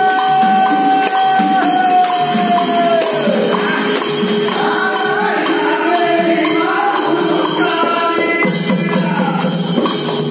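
Devotional group music: men singing with long held notes over jingling hand percussion and a hand drum, with one steady tone sustained beneath.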